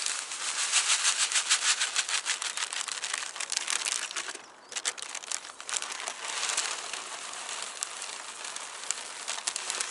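Small 2 mm and 4 mm fishing pellets poured from a crinkling plastic bag into a bait bowl: a dense pattering of tiny grains. The pour stops briefly about four and a half seconds in, then carries on more lightly.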